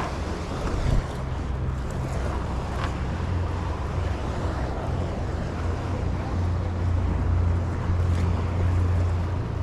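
Wind rumbling on the microphone over a steady wash of ocean waves, the rumble growing stronger in the second half.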